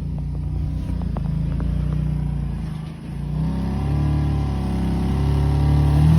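A 4x4's engine revving as it is driven over a rock obstacle. It eases off about three seconds in, then builds up again and is loudest near the end.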